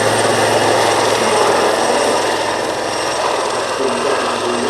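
Helicopter running steadily, a steady high whine over a low hum and rushing noise.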